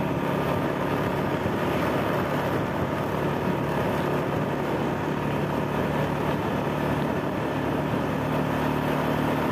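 Steady engine hum and road noise of the vehicle carrying the camera, travelling at an even speed.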